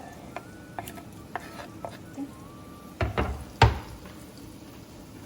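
Chopped onions sizzling in hot oil with garlic, green chillies and curry leaves while a utensil stirs and scrapes the pan, with small clicks throughout. Two heavy knocks come about three seconds in, the second one the loudest.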